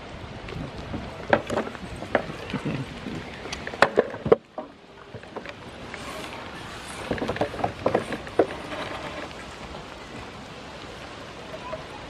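A goat nibbling small seeds off a tabletop close up: irregular soft clicks and taps of its lips and the seeds on the board, in two busy spells with a short lull between them.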